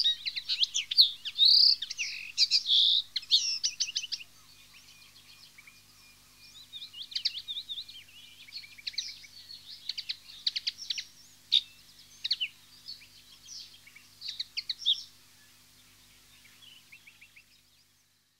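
Common linnet twittering: fast, chattering chirps, dense and loud for about the first four seconds, then sparser and quieter bursts that fade out just before the end.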